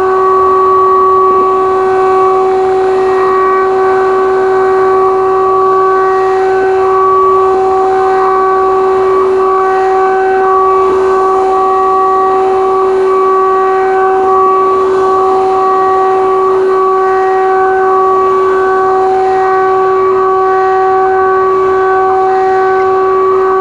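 DJI Inspire 1 quadcopter's motors and propellers whining at a steady pitch as it climbs.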